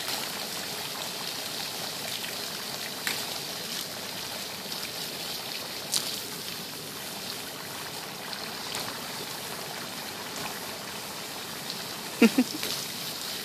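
Garden hose spraying water over a bison's head and back, a steady splash of water running off its coat onto the ground, with a few sharp ticks. Near the end come two short, low, pitched sounds.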